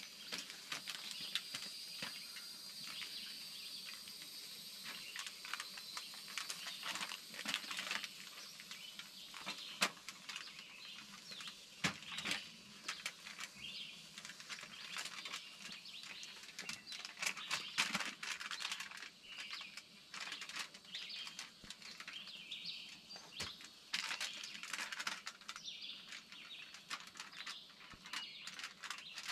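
Knife cutting a slab of baby back pork ribs into sections on aluminum foil: scattered crinkles and taps, with birds chirping in the background.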